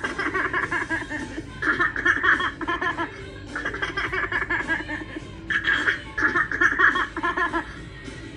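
Spirit Halloween 'Gutsy Gwen' zombie-baby animatronic playing its sound track: a childlike laugh in four bursts over spooky music.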